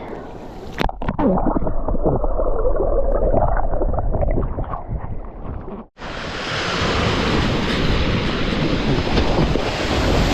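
Muffled water sounds with gurgling, heard as through a camera held underwater in the sea. About six seconds in there is a sudden cut, and then wind buffets the microphone over the steady wash of surf.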